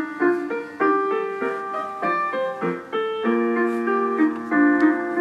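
Piano music playing from the small speaker of a Panasonic RC-6530 flip clock radio just switched on: a melody of separate notes, with fuller chords from about three seconds in.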